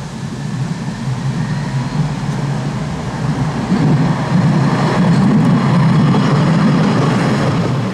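Tram running along the rails, a steady rumble that grows louder about four seconds in and eases off near the end.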